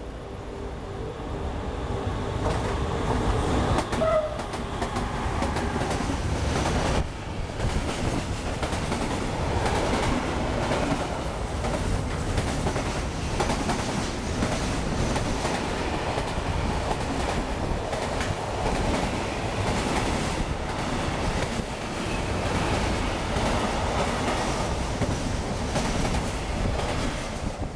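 Freight train of container and swap-body wagons passing at speed. A steady rail rumble with wheels clacking over the track builds over the first few seconds as the train arrives, then holds until the last wagons pass.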